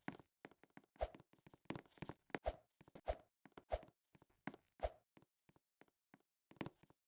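Irregular quiet taps and knocks, several with a dull thump, then quiet near the end.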